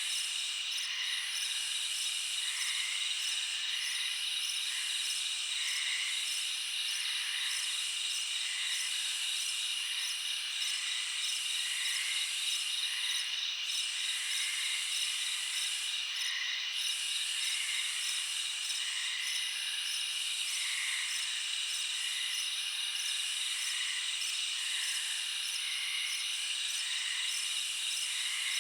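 Night insect chorus: crickets trilling steadily at several pitches, over a higher call that breaks off and starts again about every two seconds, and softer chirps repeating about once a second.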